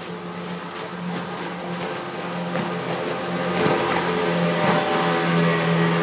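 Speedboat passing close at speed: a steady motor drone, with the rush of its spray and wake growing louder about halfway through as it goes by.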